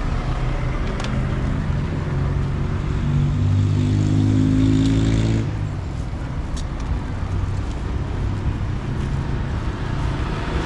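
A motor vehicle engine running close by, over a steady low traffic rumble. It is loudest between about two and five and a half seconds in, then drops away suddenly. A few light clicks are heard.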